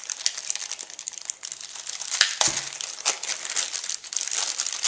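Clear plastic bag crinkling as a battery is handled and unwrapped from it: a dense, continuous crackle with sharper snaps, the loudest about two seconds in.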